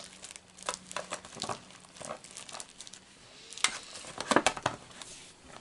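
Packaging crinkling and rustling in irregular bursts as items are crammed back into the kit's packet, busiest about three and a half to five seconds in.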